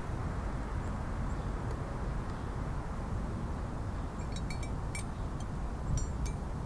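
Steady low outdoor background rumble with no shot fired, and a few faint high ticks in the second half.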